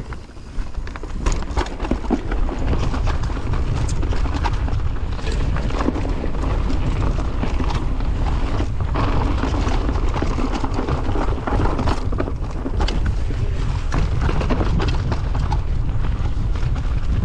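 Wind buffeting the microphone over the rattle and clatter of a mountain bike riding a rough, rocky downhill trail, with many small knocks and clicks; it grows louder about two seconds in and stays steady.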